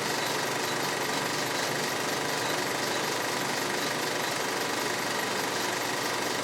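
Vintage film projector running steadily: a fast, even mechanical clatter of the film transport and shutter, with a faint high whine.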